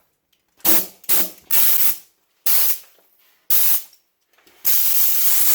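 Compressed-air blow gun fired in six short blasts, the last one longer, blowing dirt out of a robotic lawnmower.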